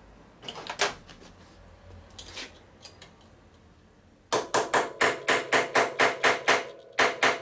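A hammer striking the chopper's steering stem nut in a quick run of about a dozen ringing metal blows, about four a second, starting about four seconds in. The blows back off fork neck bearings that were adjusted too tight. A few light tool clinks come before them.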